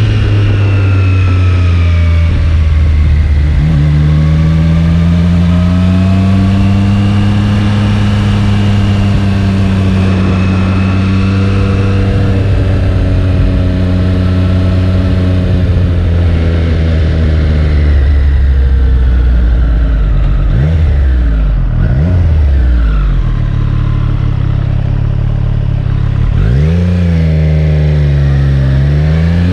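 Triumph Street Triple 765 RS inline three-cylinder engine heard from on board while riding. The engine note climbs and eases slowly, has a few quick drops and jumps about two-thirds of the way through, and revs up sharply near the end.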